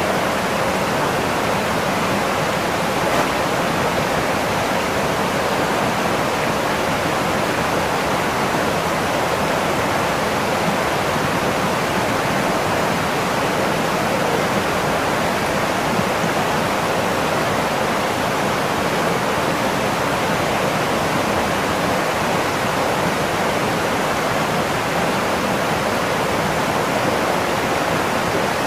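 Water pouring over a small concrete weir into an irrigation canal: a steady, even rushing of falling water that doesn't change.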